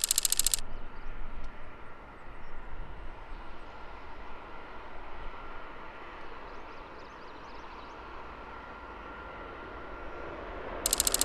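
Jet airliner engines heard from a distance: a steady rumble with a faint whine that grows louder near the end. A harsh buzz cuts in briefly at the start and again for about a second near the end.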